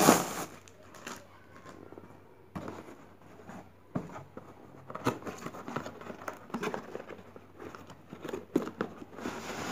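A sharp rip of a plastic courier mailer right at the start, the loudest sound, then scattered crinkling, tapping and rustling as a cardboard box is handled and its lid opened.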